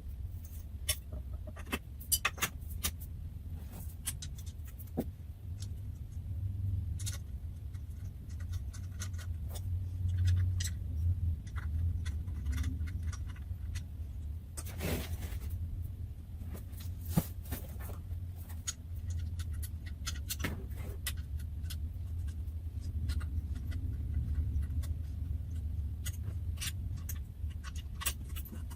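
Scattered clicks, knocks and light scrapes of trampoline parts being handled and fitted together during assembly, over a steady low hum.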